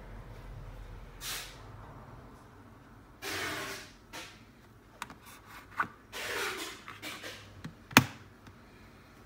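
Hands handling a carbon-fibre full-face helmet: several rustling rubs and a few small clicks, then one sharp click about eight seconds in as a hand works the clear visor.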